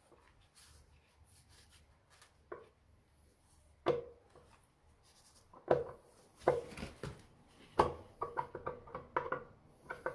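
Engine side cover on a Triumph Bonneville being worked loose and pulled off the crankcase by hand: several separate metallic knocks and clunks, then a quick run of small clinks near the end.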